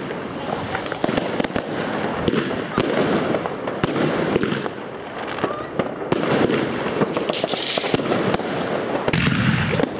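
Fireworks: a battery of aerial shells firing in quick succession, with many sharp bangs over a dense, continuous crackle of bursting stars.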